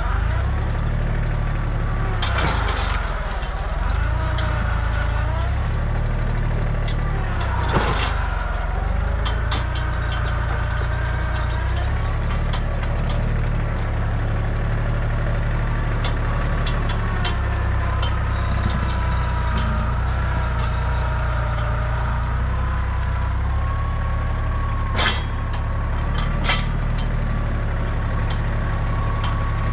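Kubota compact tractor's diesel engine running under load, its engine speed rising and falling as it works, then settling to a steadier note in the second half. A few sharp cracks sound over it, a couple near the start and two close together near the end.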